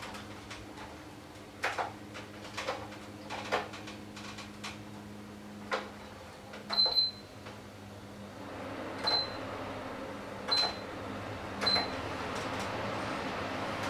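Knocks and clicks as an electric fan is handled, then four short high beeps from its control buttons, each with a click. From about eight seconds in the fan runs with a steady airy rush.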